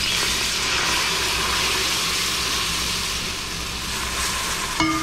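Milk being poured into a hot pan of butter-and-flour roux, a steady hiss of liquid hitting the hot pan that starts at once and eases off near the end.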